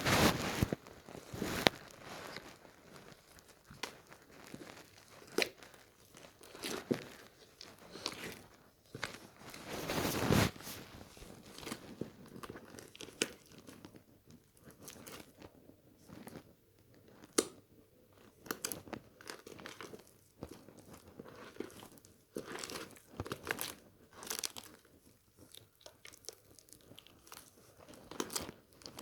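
Slime being squeezed and worked by hand, giving irregular crackling, crunching clicks and pops, loudest near the start and about a third of the way through.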